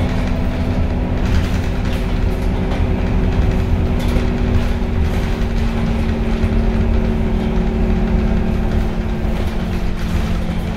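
Inside the cabin of a Scania K230UB diesel bus with a ZF Ecomat 6HP502C automatic gearbox, running at low speed: a steady engine and driveline drone with a few held low tones.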